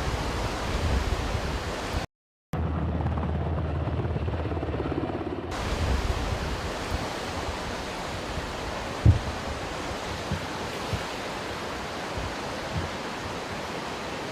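A steady rushing noise, cut off briefly about two seconds in, with a single thump a little past the middle.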